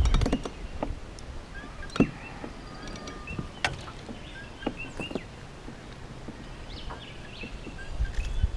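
Short bird chirps repeating over outdoor quiet, with a few sharp clicks and knocks from handling gear in a small boat. Wind rumbles on the microphone at the start and again near the end.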